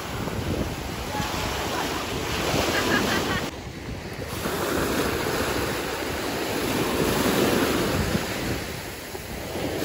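Small waves breaking and washing up a sandy beach, the surf swelling and fading several times, with wind buffeting the microphone.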